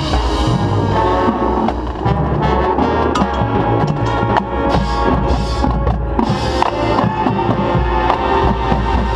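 Competitive marching band playing a loud field-show passage: brass sustaining chords over drumline strikes.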